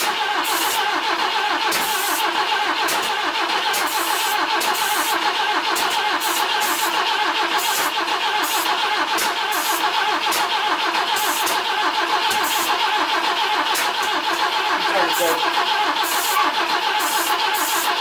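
BMW E21's M10 four-cylinder being cranked over on the starter without firing, a steady churning that runs on without catching. Short bursts of hiss from starting fluid sprayed into the intake come and go over it. The engine has good compression but will not start, and the distributor is being turned to find the ignition timing.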